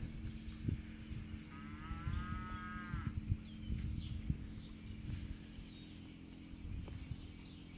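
A cow mooing once in the distance, a single drawn-out call of about a second and a half, starting about a second and a half in. Steady high-pitched insect drone and low wind rumble run underneath.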